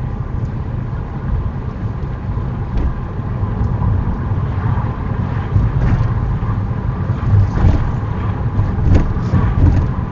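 Car driving along a town road, heard from inside the cabin: a steady low rumble of engine and tyres on the road that grows a little louder about halfway through, with a few faint knocks.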